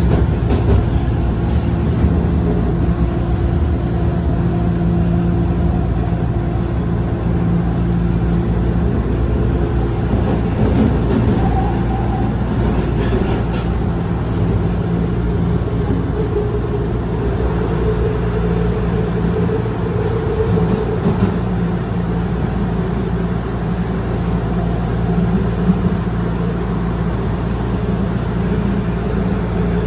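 Toronto Rocket subway train heard from inside the car while running through the tunnel: a loud, steady rumble of wheels on rail with a motor hum whose pitch shifts about halfway through, and a few brief clicks and rattles in the middle.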